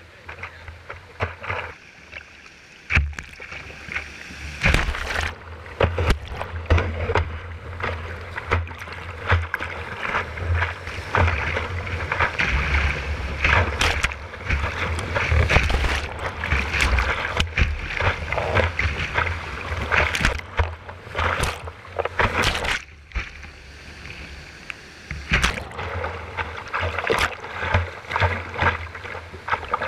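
Whitewater rushing and splashing over the bow of a plastic whitewater kayak, heard from a camera mounted on the bow, with repeated sharp splashes as waves break over the deck and a low buffeting rumble. Loudest through the middle, easing for a couple of seconds near the end.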